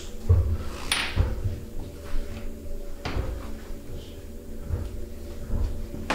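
A few dull thumps and knocks over a faint, steady hum.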